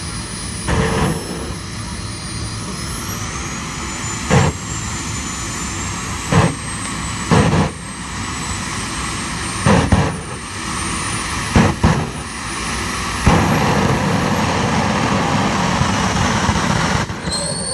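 Small turbine jet engine of an RC dragster running with a steady high whine that slowly rises and falls. Six short loud bursts punctuate it, one to three seconds apart. The engine then holds louder from about two-thirds of the way through.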